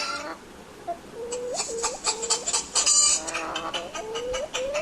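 Hens clucking: a series of drawn-out calls, each rising in pitch, starting about a second in, with a loud quick flurry of clucks about three seconds in.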